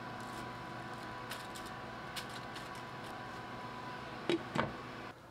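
Cabbage wedges pushed into a pot of vegetables, with a few light clicks, then a glass pot lid set down on the stainless pot with two clinks about four seconds in, over a steady background hum.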